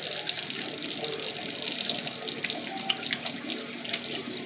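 Tap water running steadily into a sink while hands are washed under it, with small irregular splashes.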